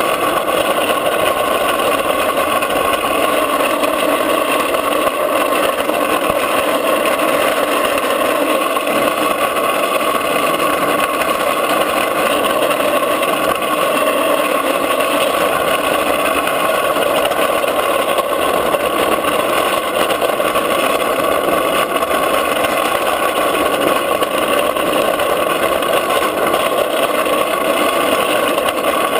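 Drift trike coasting down an asphalt road, its wheels rolling on the road surface with a steady loud roar and wind noise, at an even pace throughout.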